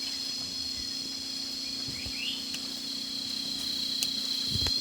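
Steady high-pitched drone of a forest insect chorus, in several layered bands, with a short rising chirp about two seconds in and a faint knock near the end.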